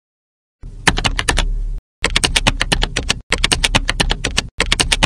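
Computer keyboard typing sound effect: rapid keystrokes, several a second, in runs of about a second that cut off abruptly with dead silence between, starting about half a second in.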